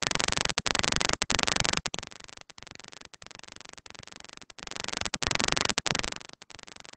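Harsh static hiss on the video-call audio that cuts out in brief gaps many times. It is louder in the first two seconds and again around five seconds in.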